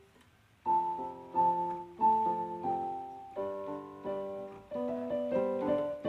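Background piano music: a slow run of struck notes and chords, each dying away, starting a little under a second in.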